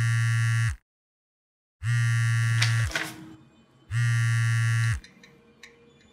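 Mobile phone vibrating against a hard surface for an incoming call: three steady, even buzzes of about a second each, a second apart, with a short knock near the end of the second buzz.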